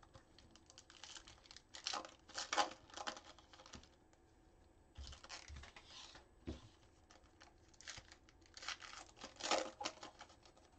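Foil wrapper of a baseball trading-card pack being torn open and crinkled by hand, in irregular bursts of crackling with a pause of about a second near the middle.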